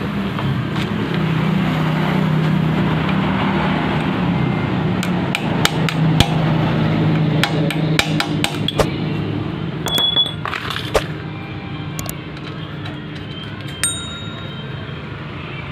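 Small single-cylinder petrol engine with its rocker arms exposed, running steadily while its carburettor is being adjusted. Sharp metallic clicks and clinks come through in the middle of the stretch, and the engine note drops slightly near the end.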